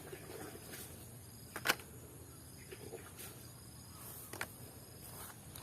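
Sharp clicks and knocks of toys being handled, the loudest about a second and a half in and another about four seconds in, with a few fainter clicks between.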